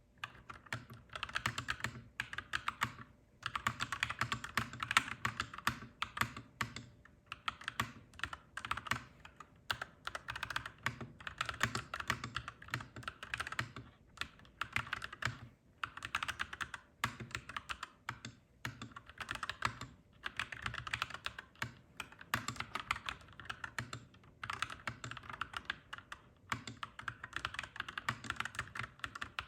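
Typing on a clacky mechanical keyboard: rapid runs of key clicks with a low thud under each stroke, in bursts of a second or two with short pauses between.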